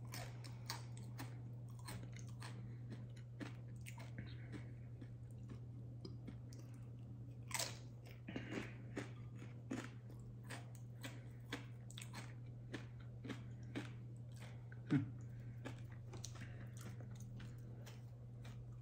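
A person chewing a Paqui One Chip Challenge tortilla chip: irregular small crunches and mouth sounds, with louder crunches about 7.5 and 15 seconds in, over a steady low hum.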